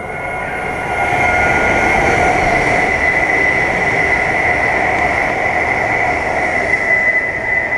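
Chinese high-speed bullet train running past a station platform at speed: a loud rush of wheels and air that builds over the first second and holds, with a steady high whine over it.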